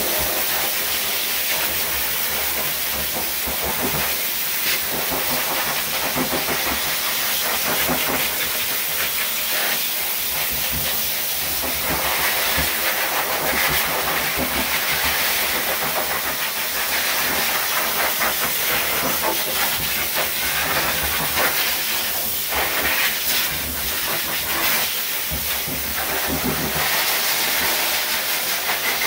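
High-powered pet grooming dryer blowing a steady, loud rush of air through its hose, the sound shifting a little as the nozzle is moved through a wet dog's coat.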